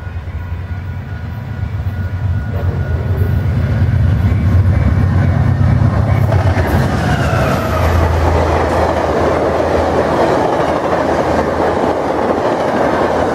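VIA Rail passenger train with two diesel locomotives passing at speed. The locomotives' low engine drone grows louder as they come up and pass about six seconds in, with a pitch that drops as they go by. After that comes a steady rushing noise of the coaches' wheels on the rails.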